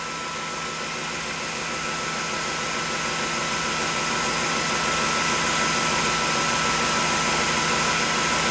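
Redroad W13 wet-dry vacuum's motor running in its docking station during the self-clean cycle: a steady high whine over rushing air, slowly growing louder.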